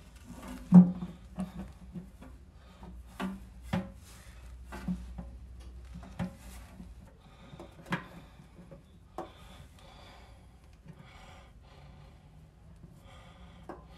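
Sheet-metal oil pan of a small-block Chevy 350 being handled and worked up into place under the engine: scattered knocks, taps and scraping of metal on metal. The sharpest knock comes about a second in.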